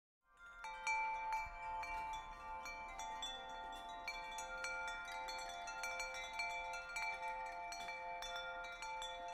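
Wind chimes ringing: many metal chimes struck again and again, their clear, overlapping tones ringing on. The ringing starts a moment in, out of silence.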